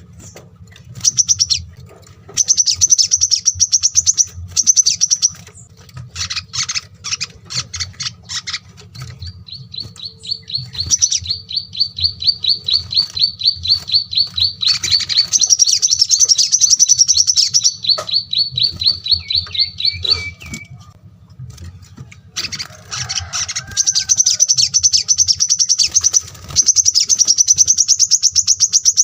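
Small songbirds singing fast, high-pitched trills of rapidly repeated notes, with one long, even trill lasting about ten seconds midway. A faint low hum runs underneath.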